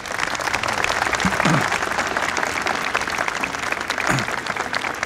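A crowd applauding, a dense steady patter of many hands clapping at once.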